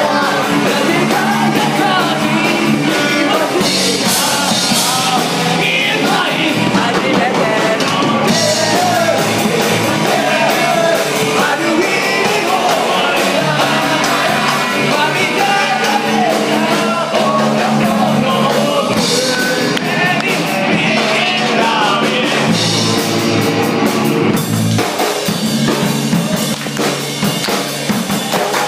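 Live rock band playing loudly: sung vocals over electric guitar and a drum kit.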